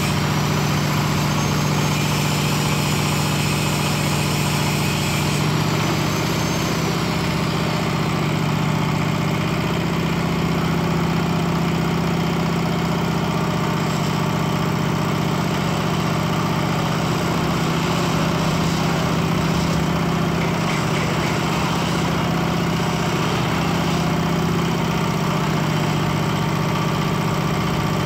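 Engine of a concrete hoist (lif cor) machine running steadily at idle.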